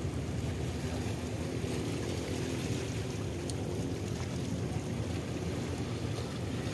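Steady low rumble of the engines of a large passenger ship and the tugboat pushing it as it docks, heard across open harbour water.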